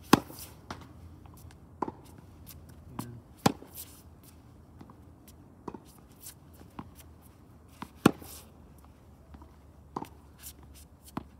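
Tennis rally: the ball cracking off strings and bouncing on the court, a string of sharp single pops about a second or more apart, the loudest about every three to four seconds.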